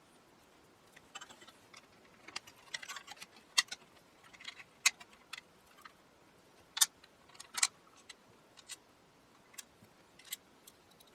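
Irregular sharp clicks and taps of small metal parts and hardware being handled and set against a radio faceplate while a component is positioned on it, the loudest clicks in the middle of the stretch.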